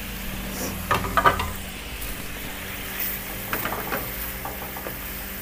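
A wooden spatula stirring and knocking against a non-stick frying pan of squid in sambal sauce, which sizzles steadily on the gas stove. A few sharp clacks come about a second in, and more around three and a half seconds.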